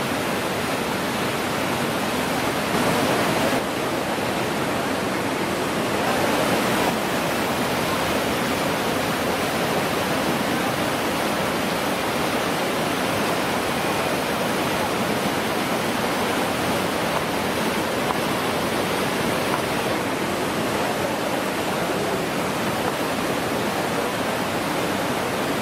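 Whitewater rapids rushing steadily on a canoe slalom course, swelling slightly twice in the first few seconds.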